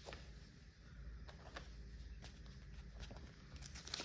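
Faint handling sounds: a few light, scattered taps and soft rustles as bundles of embroidery floss from a cross-stitch kit are set aside on a table, over a low hum.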